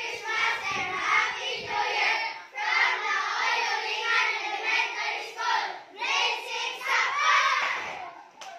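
A group of children singing together in unison, in phrases with brief breaks, the singing stopping near the end.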